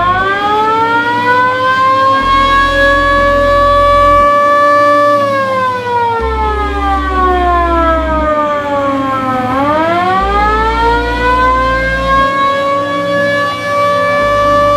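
Roof-mounted siren of a VW T2 bay window (Kombi) ambulance sounding a wail. It climbs in pitch over about four seconds and holds briefly, then slides down for about four seconds and climbs again near the end.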